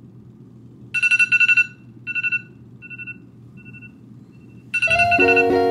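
Phone alarm ringtone beeping in a fast high-pitched pulse, repeating several times and growing shorter and fainter each time. Near the end, plucked guitar music comes in.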